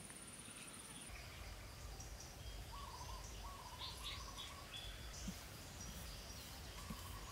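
Faint woodland ambience: scattered bird chirps and short calls, with an insect's high steady buzz that stops about a second in, over a low rumble.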